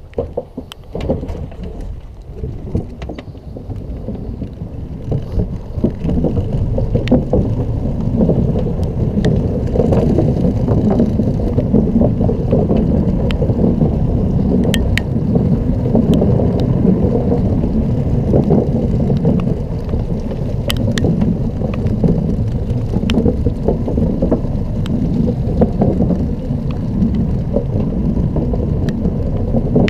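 Steady low rumble and rattle of a Xiaomi M365 electric scooter rolling over paving, with occasional sharp clicks. It gets louder about six seconds in and then holds steady.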